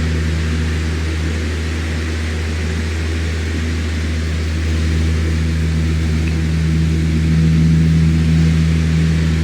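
Electric fan running steadily: a low motor hum with a few faint steady tones over an even rush of air, swelling slightly about seven seconds in.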